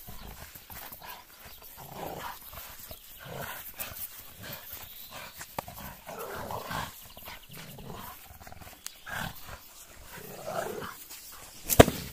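Two American bulldogs growling in rough play as they tug a rubber toy between them. There is a sharp knock near the end.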